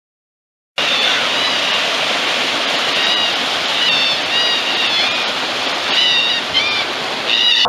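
Running stream water, a steady rushing that starts suddenly about a second in, with short high chirps repeating over it.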